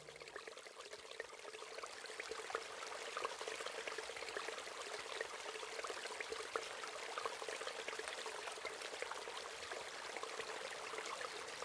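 River water splashing and trickling: a steady wash of water with many small splashes.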